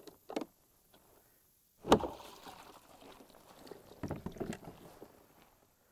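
Water splashing and sloshing against a Hobie Outback fishing kayak, with a sharp loud knock just before two seconds in and smaller knocks and splashes after it.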